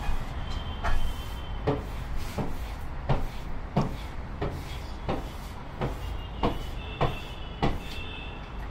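A steady series of knocks, about one every 0.7 s, from hands working the wooden window's sliding panel, over a low steady rumble of traffic.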